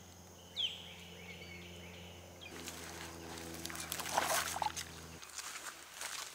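Rustling and crackling as a gravity water-filter kit is handled, then footsteps through grass and dry leaves, over a low steady hum that cuts off about five seconds in. One short chirp about half a second in.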